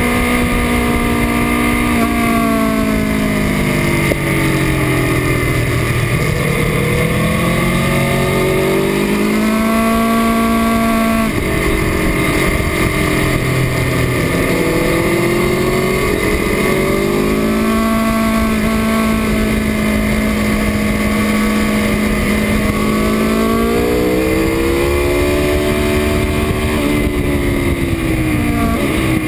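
2018 Aprilia Tuono V4 RR's V4 engine heard from on board while lapping a race track, the revs falling away and climbing again several times, with a sudden jump in pitch about eleven seconds in and a long steady stretch later on, over rushing wind.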